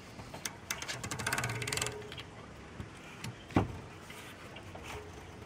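Ratcheting torque wrench clicking rapidly as it turns a bicycle cassette lockring tool to tighten a new lockring, with scattered single clicks and one sharp metallic knock about three and a half seconds in.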